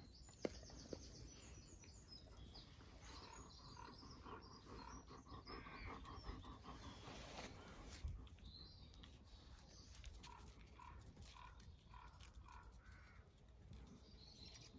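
Faint birds chirping in short repeated notes, with a couple of light clicks in the first second.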